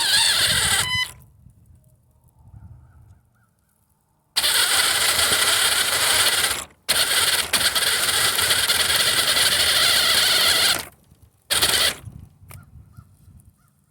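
1/5 scale RC car's motor whining under throttle in several bursts, the longest about four seconds, with quiet gaps where it is let off.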